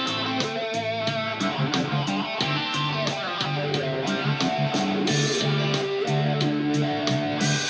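Guitar playing held, ringing notes and melody lines over a steady beat of about three strokes a second.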